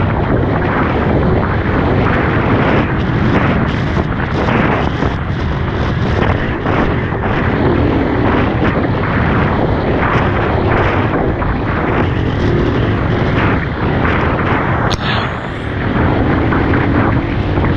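Dirt bike engine running under way, buried in a loud, steady rush of wind and riding noise, with a faint engine note that rises and falls.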